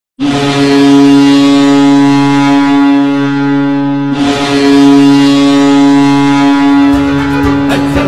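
Ice hockey arena goal horn sounding two long, deep, steady blasts of about four seconds each, with music starting to come in near the end.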